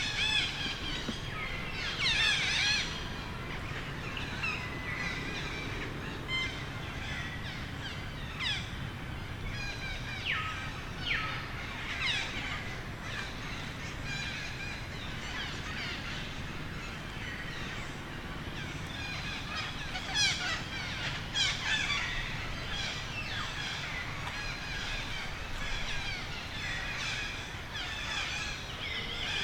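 High-pitched animal calls: many short chirps and squeals, some sliding in pitch, scattered throughout and louder in clusters about two, eleven and twenty-one seconds in, over a steady outdoor background.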